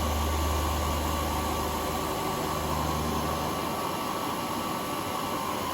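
Herless manual combination milling machine running a cut under power feed: a steady hiss with a high whine, and a low hum that drops away a little past halfway.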